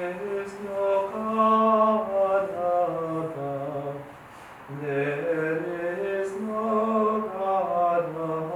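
Unaccompanied Byzantine liturgical chant: voices sing a hymn on long held notes in a slow melodic line, with a brief breath pause a little before halfway.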